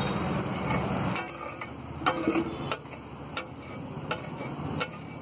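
A steel spatula scraping pav bhaji across a flat iron tawa and clinking against a steel serving plate. It scrapes for about the first second, then sharp metallic clicks follow about every two-thirds of a second.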